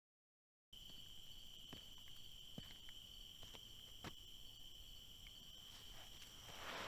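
Faint, steady high-pitched insect trill with a few soft clicks. It starts after a moment of dead silence, and a hiss swells in near the end.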